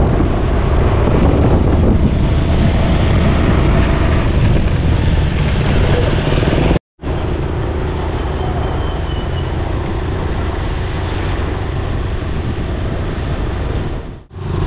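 Motorcycle running at road speed, with wind rushing over the microphone. The sound cuts out for an instant about seven seconds in.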